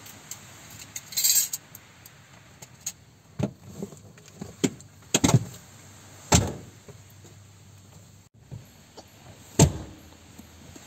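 Knocks and clunks of a Ford Everest's leather rear seats being folded and moved by hand, with a short scraping rustle about a second in; the loudest clunk comes near the end.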